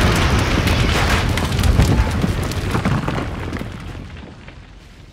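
A huge explosion-like blast, a loud rumbling roar with crackling through it, that dies away over the last two seconds.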